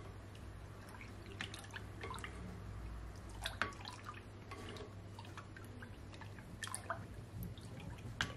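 A spoon stirring thin cucumber juice in a glass bowl: soft swishing and dripping of the liquid, with scattered small clicks and bubbly blips.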